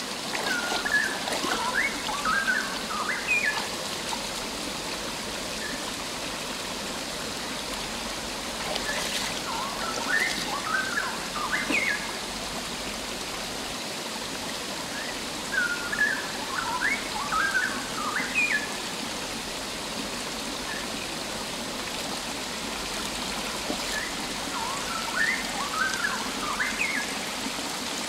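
Shallow rocky stream running steadily over stones, with a bird singing a quick string of short rising chirps four times, several seconds apart.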